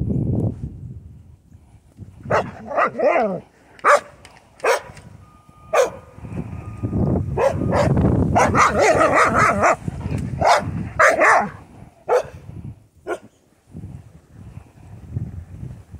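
Carolina dog giving a run of short barks and yips, some sliding in pitch, from about two seconds in until near the end. Under them a plastic snow shovel scrapes along through packed snow.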